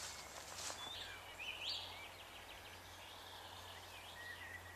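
Faint birdsong in woodland: a few thin chirps and a short rising whistle about one and a half seconds in, with a further thin call near the end, over a quiet, steady low hum.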